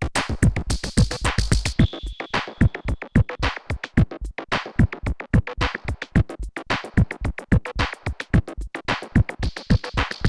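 Electronic drum-machine and synth jam from a Korg Electribe 2 and a Pocket Operator PO-14 Sub, run through a Pioneer RMX-1000 DJ effects unit. A steady beat of deep kicks and hi-hats has its treble cut away and brought back several times as the effects are worked.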